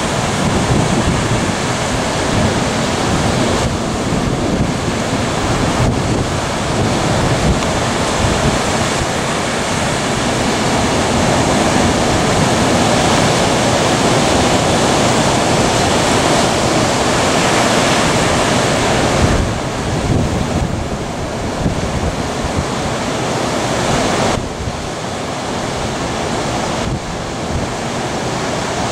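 Big hurricane-driven ocean surf breaking and rushing, with wind buffeting the microphone.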